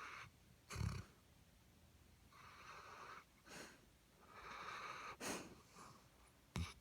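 Snoring: a few long, noisy breaths a second or two apart, with short sharp snorts about a second in, around five seconds in and near the end.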